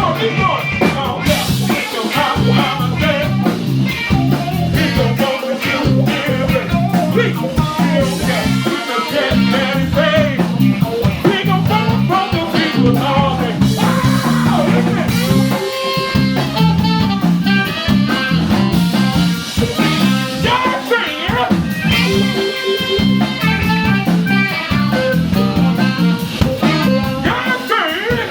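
A live band playing blues-style music with electric guitar and drum kit, loud and continuous, as at a sound check.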